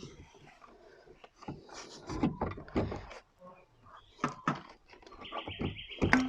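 Scattered knocks and clicks as a towing mirror's mounting studs are pushed through the drilled holes in a car door, with a short burst of rapid high ticking near the end.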